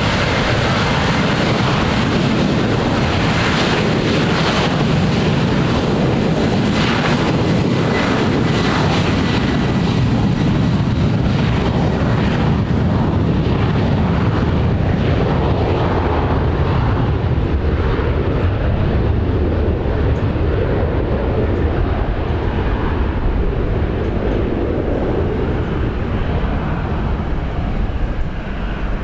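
Boeing 737-800's twin jet engines at takeoff power during the takeoff roll: a loud, steady rumble and hiss as the airliner accelerates down the runway toward liftoff, with a faint high whine coming in about halfway through.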